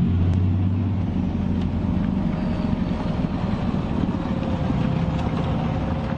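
Leopard 2A7V tank's V12 diesel engine running as the tank drives over rough ground: a deep, steady rumble with a faint steady whine above it.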